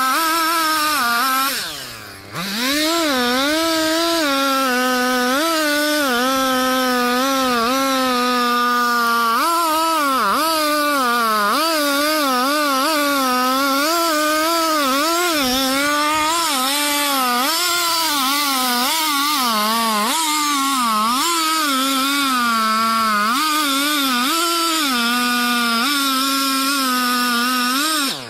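Two-stroke gasoline chainsaw cutting through a large tree trunk at full throttle during a felling cut. Its pitch sags and recovers as the chain bites into the wood. About two seconds in it drops briefly to idle and revs straight back up, and it falls off again at the very end.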